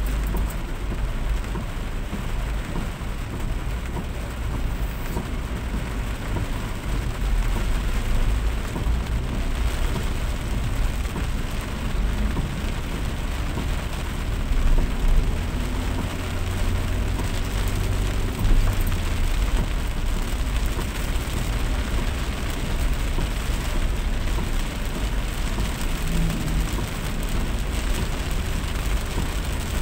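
Steady heavy rain, an even hiss with a deep low rumble underneath.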